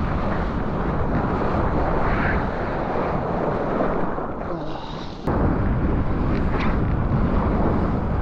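Rushing water and wind buffeting a GoPro's microphone out in the surf. The rush dips briefly, then jumps back abruptly louder about five seconds in.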